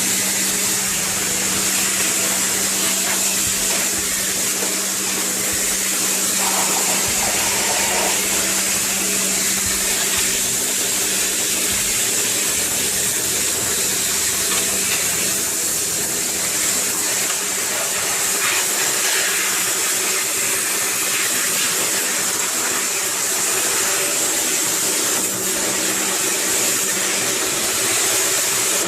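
Washing-machine parts being washed under a strong jet of water: a steady, loud hiss of spray with a faint low hum beneath.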